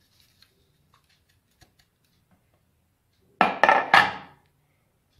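Dishware and utensils handled in the kitchen: a few faint clinks and clicks, then about a second of loud clattering near the end.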